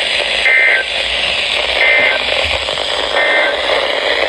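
Weather radio receiver hissing with static while three short data bursts of two-tone SAME code chirp about 1.3 seconds apart: the end-of-message code that closes an emergency alert broadcast.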